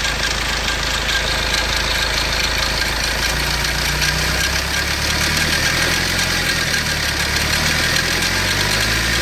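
Fiat Doblo 1.3 Multijet four-cylinder turbodiesel running steadily at about 1500 rpm, with a knocking from the timing chain: the sign of a worn timing chain.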